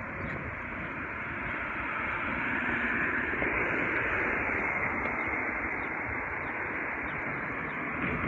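Steady hissing outdoor background noise picked up on a handheld phone microphone, a little louder in the middle, with no distinct separate sounds.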